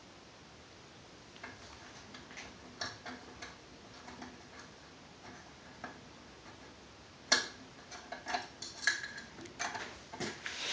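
Small sharp metallic clicks and taps, sparse at first, then a loud click about seven seconds in followed by a quick run of taps, as the dust cover hinge pin is worked into an AR-15 upper receiver.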